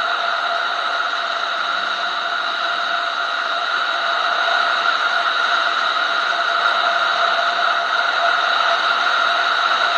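Steady rush of wind and road noise at cruising speed, heard through a motorcycle-mounted camera, with a constant hum in it.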